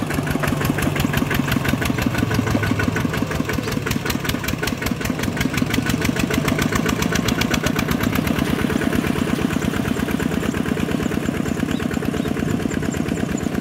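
A small tractor's diesel engine running steadily close by, with a fast, even chugging beat.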